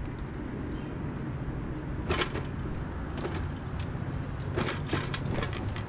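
Electric mobility scooter driving along a concrete driveway: its motor drive runs with a steady low hum, and a few sharp clicks and rattles from the scooter come about two seconds in and again near the end.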